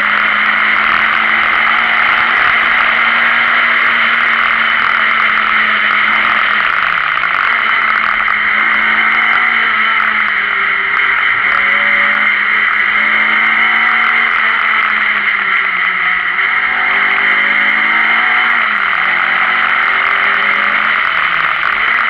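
Renault Clio Sport rally car's four-cylinder engine running hard at high, steady revs, with a strong steady rush of noise over it. The pitch dips briefly a few times, about seven seconds in and twice near the end, as the driver lifts or changes gear.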